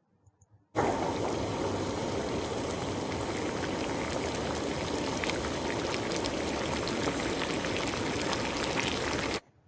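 Water boiling hard, a steady bubbling that starts abruptly about a second in and cuts off just before the end.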